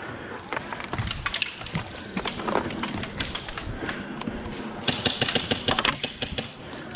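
Rapid sharp clicks over rustling movement, densest in a run of about a second near the end.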